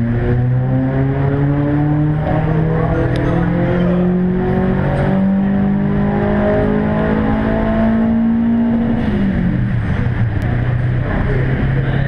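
Subaru Impreza's flat-four engine pulling under full load on a rolling road, its pitch climbing steadily for about nine seconds as the revs rise, then dropping away when the throttle is lifted.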